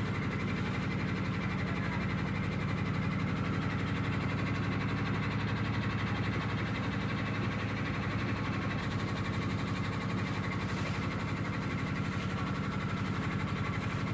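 Tour boat's engine running steadily while the boat cruises: an even, low hum with a faint steady higher whine over it.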